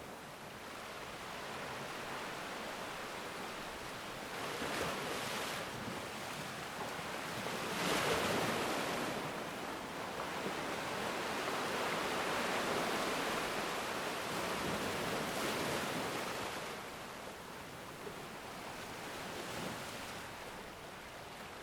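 Ocean waves breaking and washing in, a continuous rushing hiss that swells and ebbs several times, the biggest surge about eight seconds in.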